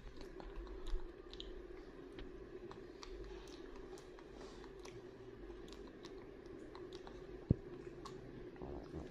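Scattered light clicks and taps of a baby monkey's hands handling things on a tabletop, over a steady low hum, with one sharp knock about three-quarters of the way through.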